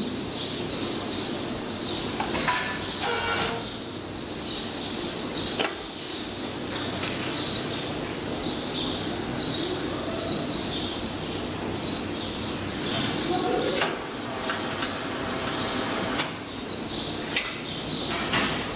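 Barn ambience of small birds chirping throughout, with a few sharp clicks and knocks, one about five and a half seconds in and several more in the second half.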